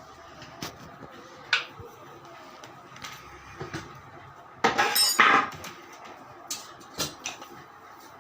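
Metal parts and tools clinking and knocking in a workshop, with a louder clatter about five seconds in.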